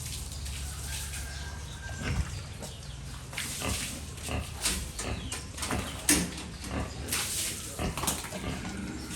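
Pigs making a series of short calls, coming thick and fast from about three and a half seconds in, over a low steady hum.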